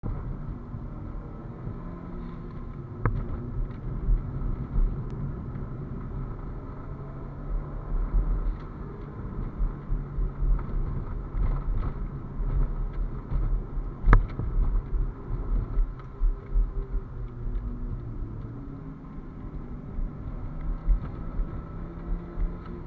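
Toyota Celica GT-Four ST205's turbocharged 2.0-litre four-cylinder engine heard from inside the cabin on track, its revs rising and falling, over a low rumble of road noise. Two sharp knocks, one about three seconds in and one about halfway through.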